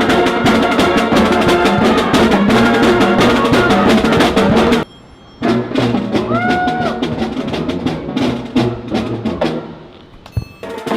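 Music with drums and percussion and a busy, steady beat; it cuts out briefly a little under halfway, then resumes and grows quieter near the end.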